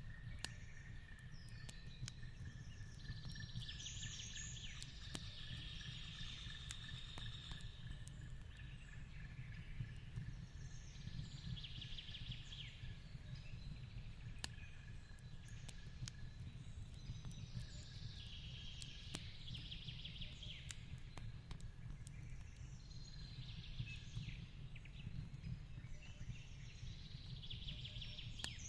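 Mixed ambience: a fireplace crackling with scattered sharp pops over a steady low rumble, while a bird sings short chirping phrases every several seconds. A thin, steady high tone runs under it through roughly the first half.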